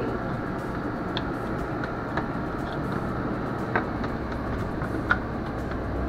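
Arctic King WPPD14CR8N portable air conditioner running, a steady rush of air and fan noise with a faint whine. A few light taps sound as the plastic window vent panel is handled.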